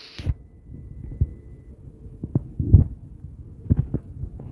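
Low, irregular thumps over a dull rumble, spaced unevenly: handling noise from the phone being moved about.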